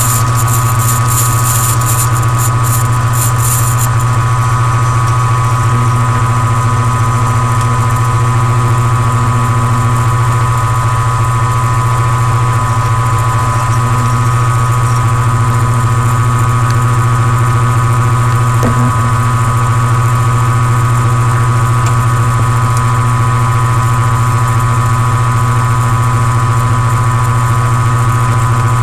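Milling machine running steadily under power, its motor giving a constant hum and a high steady whine, while the end mill cuts a slot into a clear plastic camera housing. A scratchy high hiss rides on top in the first few seconds.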